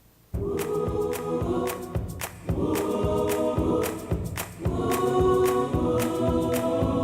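Music starting suddenly just after the beginning: a choir of voices holding chords over a steady percussive beat.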